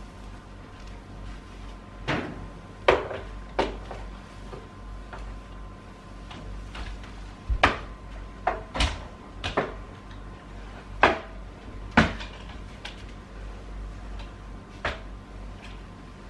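Irregular sharp knocks and clacks, about nine in all, bunched in the first few seconds and again in the middle, as a flat mop is worked over a timber floor and knocked against the floor and the furniture around it.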